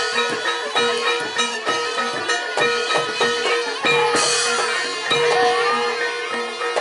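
Live Javanese barongan ensemble music: kendang drums beat a quick steady rhythm under a held, reedy wind-instrument drone with gamelan metallophones, and a bright cymbal-like splash comes about four seconds in.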